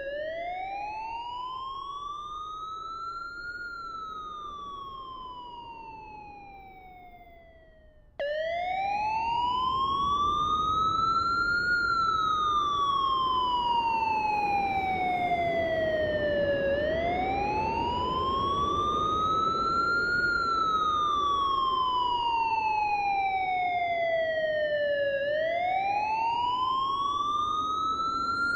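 Wailing siren sound effect, its pitch rising for about four seconds and falling for about five in a slow repeating cycle. It fades away over the first eight seconds, then cuts back in suddenly at full loudness and carries on wailing for more than two cycles.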